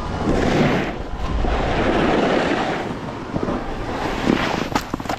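Snowboard sliding on packed snow, the scrape of the edges swelling and fading with each turn, with wind rumbling on the microphone. A few sharp clicks come near the end.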